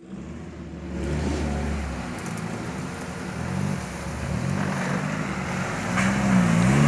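Off-road 4x4's engine running as it drives through muddy floodwater, growing louder as it approaches, with the revs rising and falling near the end.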